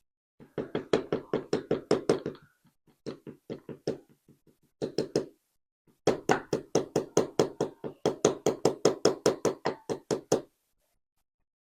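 A padlock being knocked rapidly and repeatedly, about six or seven even knocks a second. The knocks come in several runs with short pauses, the longest in the second half.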